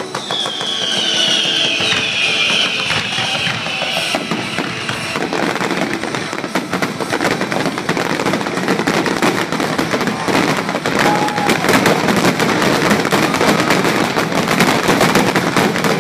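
Fireworks display: a descending whistle over the first few seconds, then a dense, rapid crackling barrage of bursts and pops. Music plays underneath.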